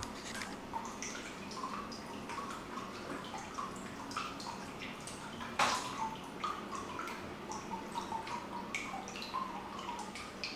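Water dripping and trickling into a full indoor bathtub, with many small irregular drips and one louder splash about five and a half seconds in.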